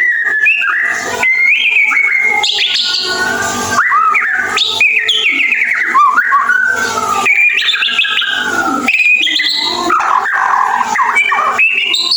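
White-rumped shama singing without pause: a fast, varied run of whistled notes and chattering twitters with quick rising and falling glides, the continuous chattering song that bird keepers call ngeriwik.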